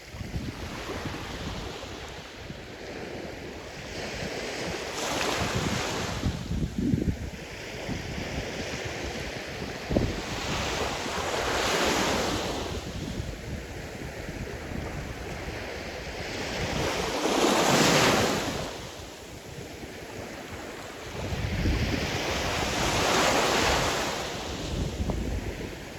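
Sea surf: waves breaking and washing in, swelling four times roughly six seconds apart, with wind buffeting the microphone.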